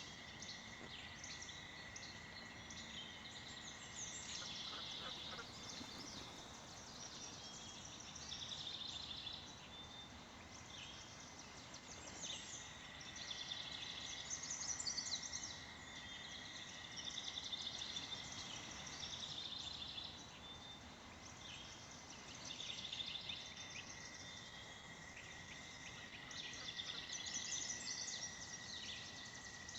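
American toad trilling: one long, steady, high musical trill that breaks off about two-thirds of the way through and starts again a few seconds later. Above it, many small birds chirp and twitter.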